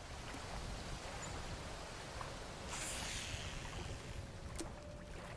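Outdoor ambience on open water: a steady low rumble with the wash of water, rising to a brief louder rush about three seconds in. A faint steady tone comes in near the end.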